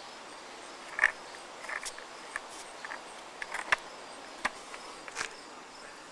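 A child's skateboard rolling slowly on a concrete sidewalk, giving a string of irregular sharp clicks and knocks, about eight in all. Crickets chirp faintly and steadily underneath.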